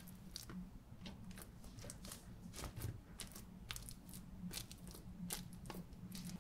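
Fingertips pressing dimples into soft, olive-oil-coated focaccia dough in a baking pan: a string of faint, short sticky sounds, about two a second, over a low steady hum.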